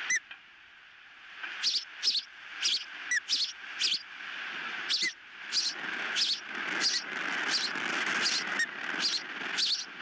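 Ospreys calling: a rapid series of short, high, squeaky chirps, about two a second, starting about a second and a half in, over steady wind rushing on the microphone.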